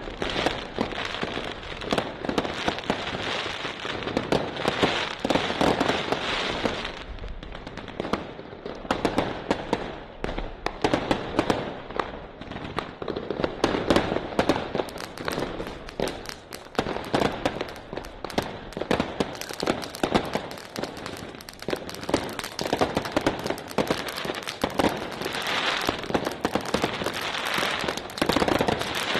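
Fireworks compound box (cake) firing a rapid, unbroken stream of shots with light bursts, many bangs a second.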